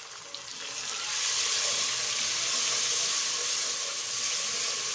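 Onion, tomato and spice masala frying in hot oil in a pot as it is stirred, the sizzle swelling to a loud, steady hiss about a second in.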